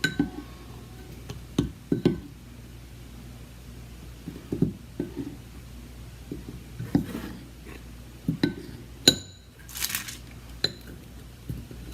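Metal spoon and fork clinking and tapping against a bowl while cookies are dipped in melted chocolate and lifted out: scattered sharp clinks, with a brief rustling hiss about ten seconds in.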